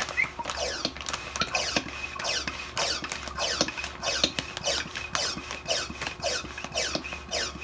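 Handheld plastic vacuum pump being worked in quick, repeated strokes on a vacuum storage bag's valve, each stroke giving a squeaky, slide-whistle-like rush of air as it sucks air out of the bag of blankets.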